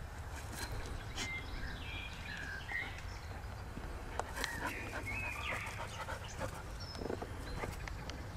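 A dog sniffing and snuffling at close range over a low steady rumble, with scattered faint short high chirps and a few soft clicks.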